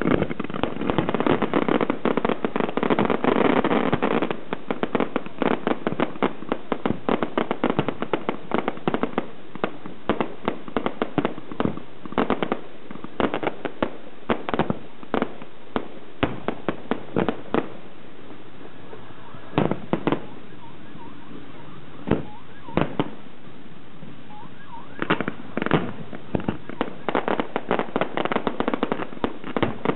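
Aerial fireworks going off: a rapid string of shell bursts and crackling, dense for the first few seconds, thinning to scattered single bangs around the middle, then a thick barrage again near the end.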